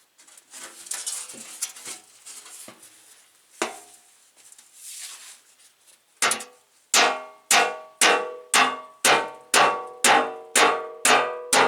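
Sledgehammer blows on a truck fender: scattered knocks and scraping, then from about six seconds in a steady run of sharp, ringing strikes about twice a second.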